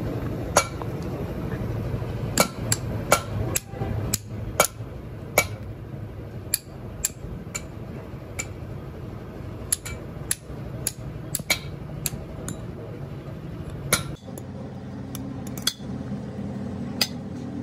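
Sharp metallic clicks and clinks of hand tools on a steel steering gear box as it is taken apart, coming irregularly a few times a second over a steady low hum.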